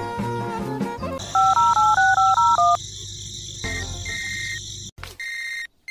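Background music gives way to a telephone keypad dialing sound effect: a quick run of about eight touch-tone beeps. A steady electronic tone follows, then a series of short repeated beeps at one pitch.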